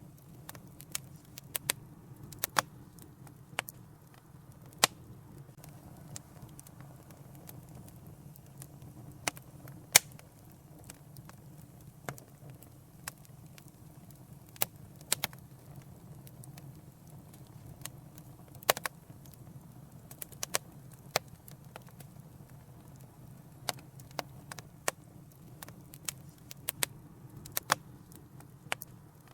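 Wood fire burning in a fireplace: a steady low rumble of flames with sharp, irregular crackles and pops, several a second in clusters.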